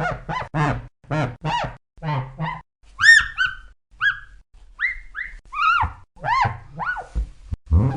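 Squeaky dog toy squeezed over and over. First comes a quick run of short squeaks, about three a second. From about three seconds in come slower, higher, clearer squeaks, each rising and then falling in pitch.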